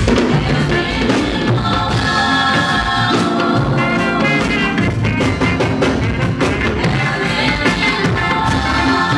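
Loud music with a drum kit keeping a steady beat and singing over it.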